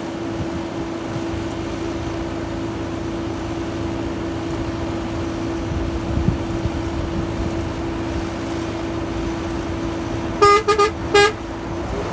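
A steady engine hum with one constant tone, then a vehicle horn tooted three times in quick succession about ten seconds in, the loudest thing here.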